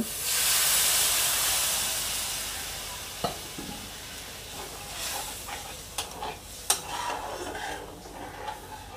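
Water poured into hot oil and fried masala paste in a kadai hits with a loud sizzle that hisses and fades over the first few seconds. A metal spatula then stirs the thinned gravy, scraping the pan with a few sharp clicks.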